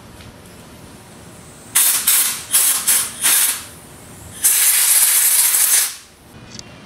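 Compressed-air blow gun hissing in about five short bursts in quick succession, then one longer blast of about a second and a half, clearing the freshly drilled holes in the planer's cast housing of chips.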